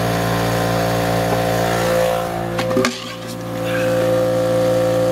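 A steady mechanical hum made of several even tones. It breaks off abruptly about three seconds in and picks up again with a higher steady tone on top.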